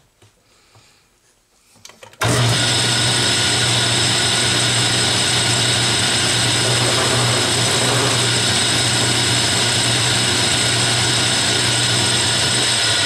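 Atlas 10F metal lathe switched on about two seconds in and running steadily with its chuck spinning: a constant low hum with several steady high whining tones. A few faint clicks come before it starts.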